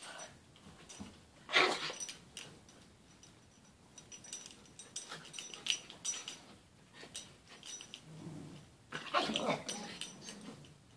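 Coton de Tulear dogs play-wrestling, making dog play noises with scattered short sounds. Two louder outbursts stand out, one about a second and a half in and one near the end.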